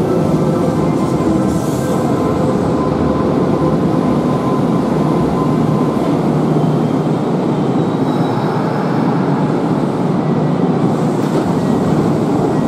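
Kintetsu electric train running into a station and slowing to a stop alongside the platform: a loud, steady running noise of wheels and motors, with thin whining tones that fade out over the first few seconds.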